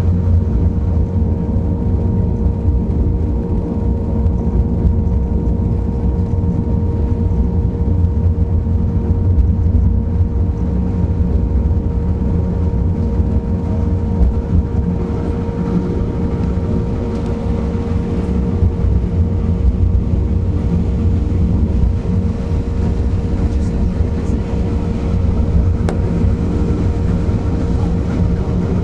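Steady rumble of a narrow-gauge railway carriage running along the track, heard from on board, with wind on the microphone and a faint steady hum running through it.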